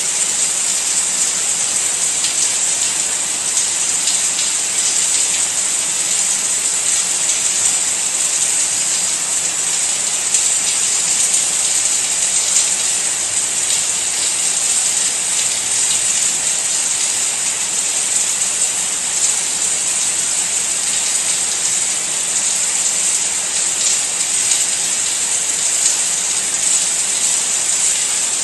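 Steady rain falling: a dense, even hiss, brightest in the high range, with a faint patter of individual drops.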